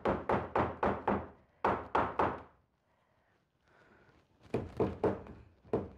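Rubber mallet tapping, through a cloth, on a wooden corbel of a chest of drawers, driving its glued pegs home into their holes. The taps come in quick runs of about four a second, with a pause of nearly two seconds in the middle.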